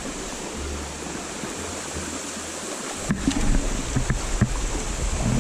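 Flowing stream water, a steady rushing hiss, with a low rumble under it and a few short knocks in the second half.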